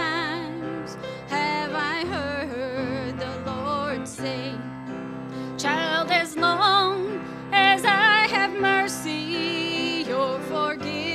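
Gospel song played on grand piano and acoustic guitar, with a vibrato singing voice carrying the melody.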